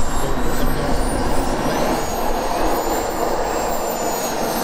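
Turbine engine of a radio-controlled L-39 Albatros model jet running as the model taxis: a steady rush with a high whine that rises a little about two seconds in and eases down again near the end.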